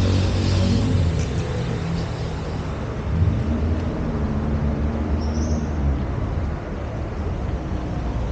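Street traffic: motor vehicle engines running in a steady low rumble, with a brief high squeak about five seconds in.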